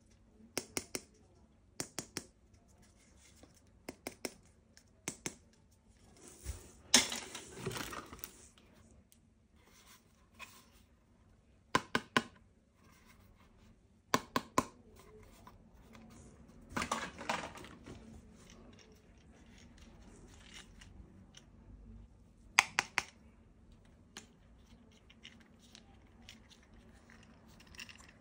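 Toy packaging and plastic toy parts being handled: scattered sharp clicks and snaps, often in quick pairs, with two longer rustling, tearing stretches about seven and seventeen seconds in.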